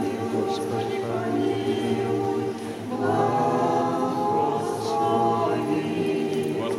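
A small group of voices singing Orthodox church chant a cappella in long held notes. The pitch steps up about three seconds in.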